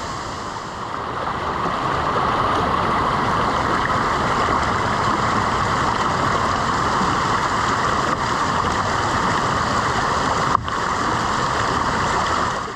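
Shallow rocky mountain stream rushing and splashing steadily over and between boulders, heard close to the water.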